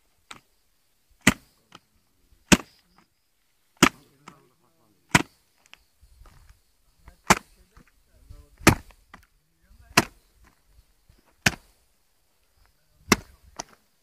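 A series of about nine sharp, loud knocks, roughly one every second and a half, with little sound in between.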